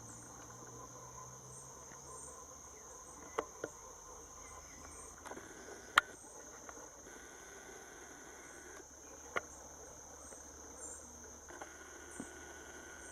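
Steady high-pitched insect drone, like crickets or cicadas, with faint short high chirps over it and a few sharp clicks, the loudest about six seconds in.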